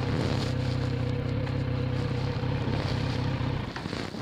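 Motorcycle engine idling steadily while stopped, with a faint hiss of wind over it; the engine sound falls away about three and a half seconds in.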